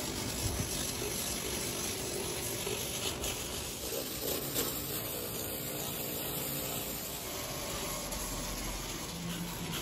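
Handheld rotary buffer with an abrasive disc grinding the rubber of a large tyre's sidewall, a steady hissing whir, buffing the damaged area during a sidewall repair.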